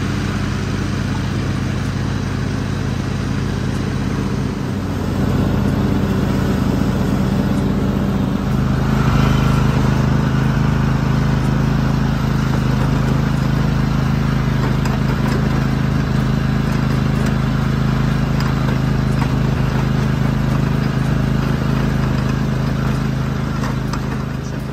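Riding lawn mower engine running steadily close by, getting louder about five seconds in and again a little before nine seconds.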